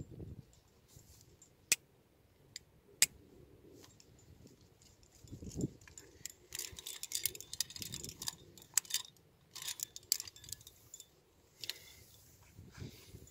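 Metal climbing hardware, carabiners and quickdraws, jangling and clinking as it is handled and clipped. Two sharp single clicks come about two and three seconds in, then a longer run of jangling clinks in the second half.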